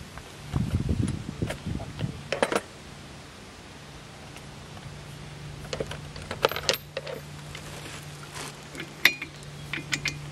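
Scattered light metallic clinks and rattles of steel tools and suspension parts being handled, over a steady low hum.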